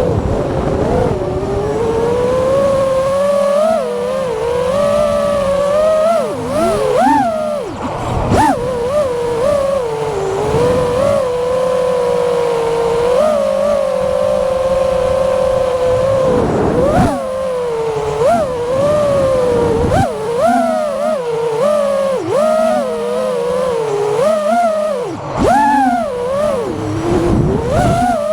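FPV quadcopter's brushless motors and propellers whining through a flight, the pitch rising and falling with every throttle change and dropping sharply at a few throttle chops.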